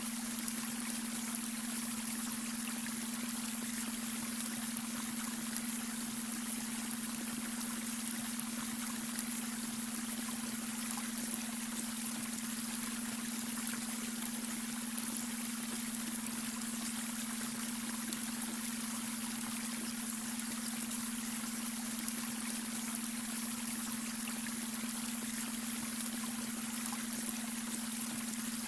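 Babbling brook, water running and trickling steadily, with a steady low hum laid underneath: the beta-wave brainwave tone.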